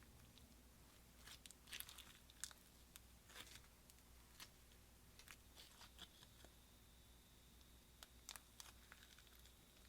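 Faint sticky crackles and small pops of slime being pressed and stretched, in scattered short clusters: a run a second or two in and another pair near the end.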